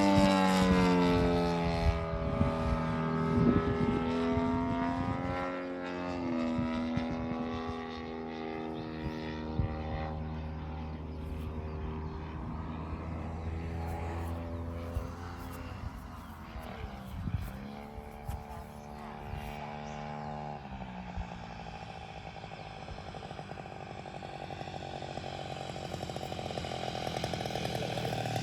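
ZDZ 90cc petrol engine of a large-scale radio-controlled P-47 model, swinging a 28x12 propeller at reduced throttle on the landing approach. Its pitch falls at the start, then steps up and down several times as the throttle is worked, and it grows louder near the end.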